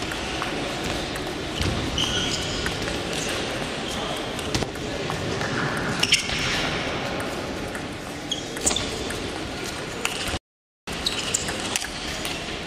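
Table tennis ball clicking off the rackets and bouncing on the table during a rally, scattered sharp pings over the steady din of a large hall with voices and play at other tables. The sound cuts out completely for about half a second near the end.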